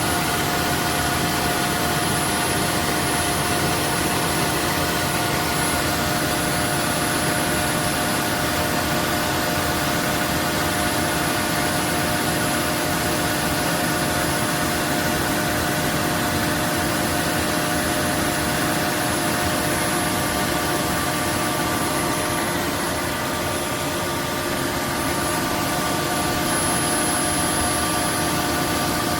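Roborock F25 wet-dry vacuum running its self-cleaning cycle in the base station: the motor runs steadily with several steady tones and a high, thin whine.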